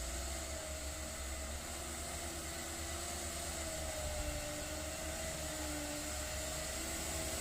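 Truck engine working hard up a steep climb: a low rumble with a steady, slightly wavering whine over it.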